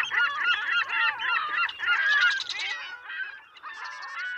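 A flock of gulls calling, many overlapping squawking cries at once, thinning out after about three seconds.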